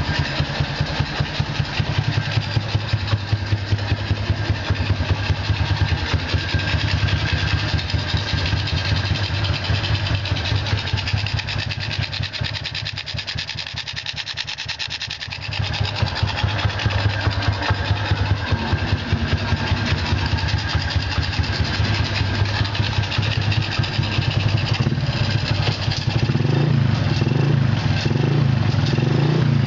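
A modified Honda Wave 125 single-cylinder four-stroke engine with a ported head, stage 1 cams, 57 mm bore and rejetted carb runs through a KITTI racing exhaust, pulsing steadily at low revs. Its deep note fades for a few seconds around the middle and comes back, then runs fuller and louder near the end.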